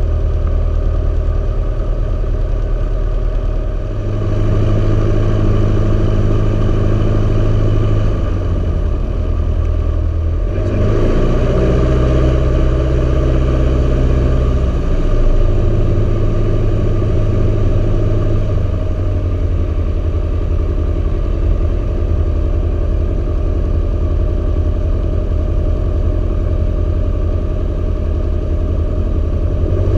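Socata TB9 Tampico's four-cylinder Lycoming piston engine and propeller running at taxi power, heard from inside the cockpit. The engine speed shifts a few times, most noticeably about ten seconds in.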